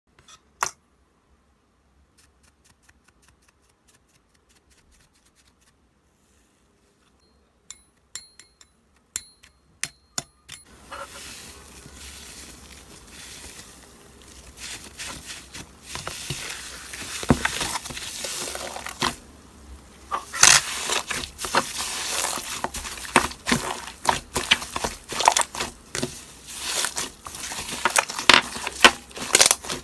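A few light clicks and taps, then from about a third of the way in a steady crackly rustling with many small clicks that grows louder, typical of a hamster digging and rummaging in paper bedding.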